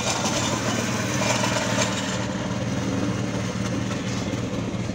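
An engine running steadily at idle.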